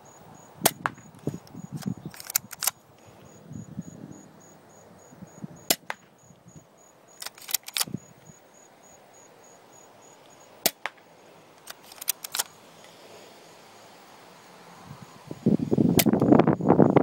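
Airsoft gun firing single shots at irregular intervals: about a dozen sharp cracks, sometimes two or three in quick succession. Near the end a louder rustling noise comes in.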